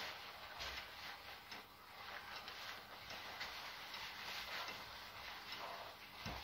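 Faint, irregular small creaks and clicks of leather clothing and riding boots as the wearer turns and shifts, over a low hiss.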